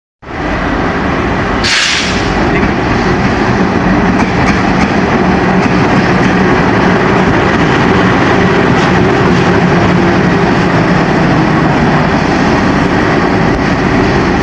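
KAI CC 206 diesel-electric locomotive running light past at close range, with its engine running and its wheels on the rails giving a steady, loud, continuous sound. A short burst of noise comes about two seconds in.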